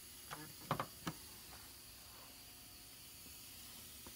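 A few short clicks and knocks in the first second or so from hands handling the metal toolbox and its contents, over a faint steady hiss.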